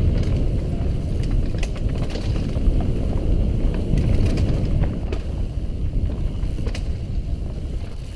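Wind buffeting the microphone of a mountain biker's camera at speed on a dirt trail, a continuous low rumble. Scattered sharp clicks and rattles from the bike over the rough ground run through it.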